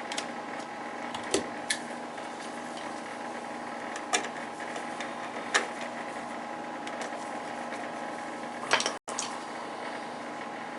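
A steady mechanical hum with several fixed tones, with a handful of sharp clicks and taps spread through it. The sound drops out for an instant near the end.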